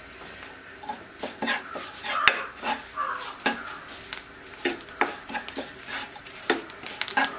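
Wooden spoon stirring and scraping a thick spice masala with curry leaves around a granite-coated frying pan as the spices roast: irregular scrapes and light knocks starting about a second in, the loudest knock a little after two seconds.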